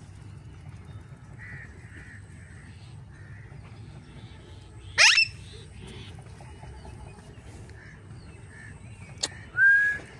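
Young yellow ring-necked parakeets calling: a loud, short upward-sweeping squawk about halfway through, and another loud call near the end, just after a sharp click. Soft chirps in between.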